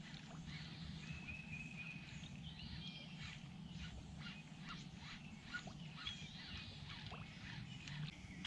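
Faint birds chirping and calling at scattered moments, over a low steady hum.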